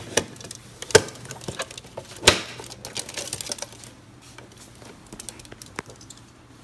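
Hard plastic clicks and knocks as a plastic insect case and its lid are handled on a wooden table. There are three sharp knocks in the first two and a half seconds, the last the loudest, with lighter clicking and rustling between them, dying down after about four seconds.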